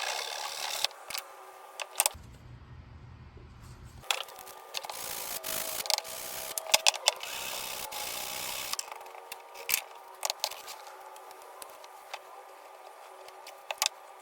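Hand-tool work on a small wooden box at the workbench: scattered clicks and knocks, with a stretch of scratchy noise from about four to nine seconds in.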